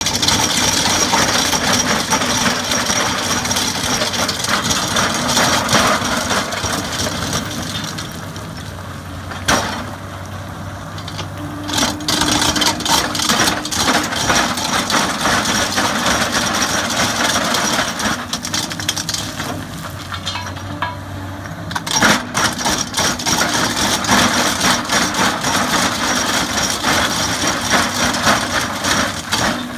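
Antraquip AQ-4 hydraulic rock grinder's rotating cutter drums grinding into hard limestone: a dense crackling and rattling of breaking rock over the steady drone of the Komatsu PC360 excavator's diesel engine and hydraulics. The grinding eases off twice, about eight seconds in and again about twenty seconds in, then picks up again.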